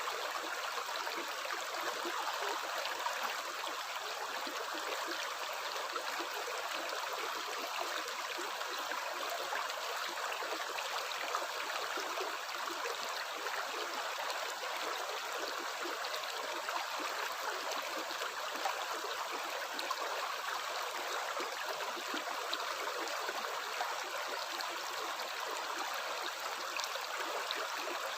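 Water running steadily, an even, continuous splashing with no pauses.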